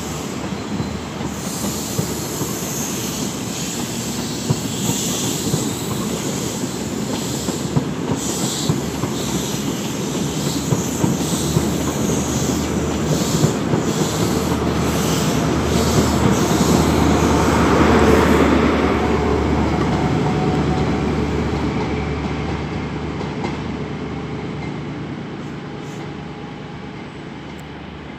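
CrossCountry passenger train running past along the platform, wheels clicking over the rail joints over a continuous rumble that grows louder to a peak about two-thirds of the way in and then fades as the train draws away.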